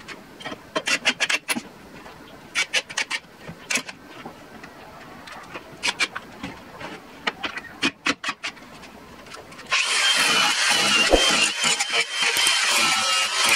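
Cordless impact driver driving screws into plywood in several short bursts of rapid clicking. From about ten seconds in, a cordless angle grinder with an abrasive disc runs steadily against the plywood with a high whine.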